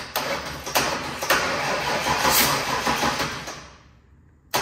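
Ford Bronco V8 cranked over by its starter, worked through a homemade remote starter switch: one run of about four seconds, then a short second bump near the end. This is the engine being turned to bring number one cylinder up on its compression stroke to top dead center.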